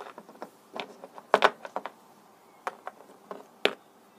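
A handful of short plastic taps and knocks as small plastic Littlest Pet Shop toy figures are handled and set down on a windowsill. The loudest come about a second and a half in and again near the end.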